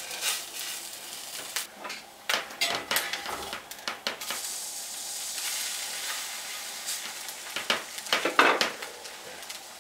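A duck egg sizzling in a cast iron skillet, with a metal spatula scraping and clicking against the pan as it presses the egg to break the yolk.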